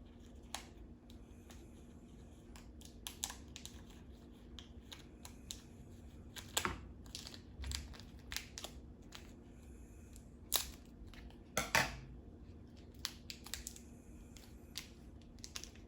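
Scissors cutting open a plastic package: scattered sharp snips and crinkles, a few louder ones past the middle.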